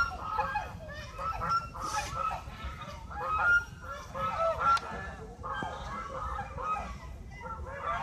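A flock of white domestic geese honking again and again, many calls overlapping, with a few louder honks near the middle.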